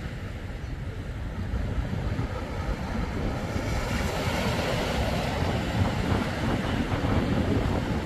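Small waves breaking and washing up the shore, their hiss swelling about three and a half seconds in, over wind rumbling on the microphone.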